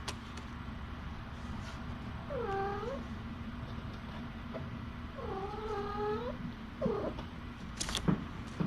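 A cat meowing: two drawn-out calls, the second about a second long, then a brief third cry. A few sharp clicks near the end, over a steady low hum.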